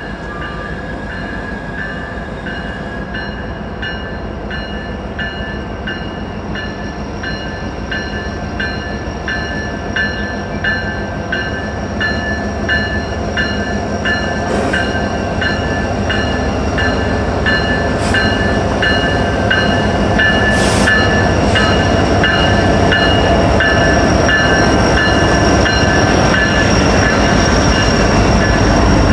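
Train approaching, its rumble growing steadily louder, while a bell rings at a steady, even beat.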